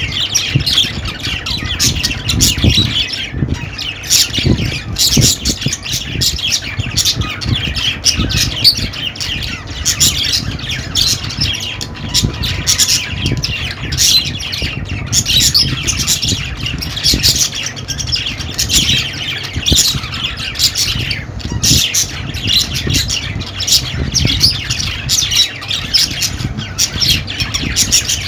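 Budgerigars chattering continuously, a dense run of short chirps, warbles and squawks with no pause, over a low rumble.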